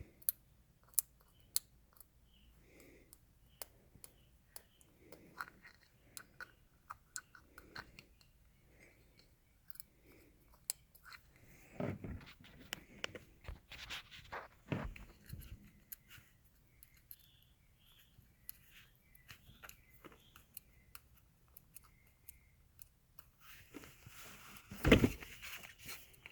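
Small clicks, scratches and crinkles of fingers picking at and peeling the protective backing off the adhesive pad of a stick-on blind spot mirror, busier in the middle, with a louder burst of handling noise near the end.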